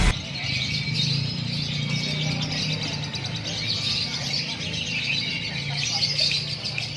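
A lovebird singing, a dense, unbroken stream of high chirps and trills.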